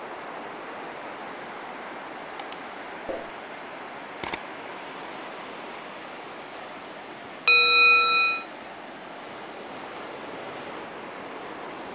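Steady hiss of ocean surf with a few short clicks, like button taps, between about two and four and a half seconds in. About seven and a half seconds in, a bright bell chime, the loudest sound, rings for about a second: a notification-bell sound effect.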